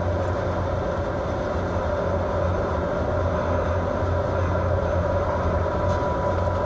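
Steady low drone of a fishing boat's diesel engine under way, with the rush of wind and rough sea mixed in.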